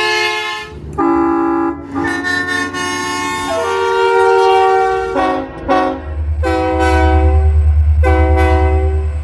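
A fouled Nathan K3LA five-chime locomotive air horn sounding a string of long and short blasts, its chord shifting between blasts. A locomotive's deep, pulsing engine rumble comes in about six seconds in.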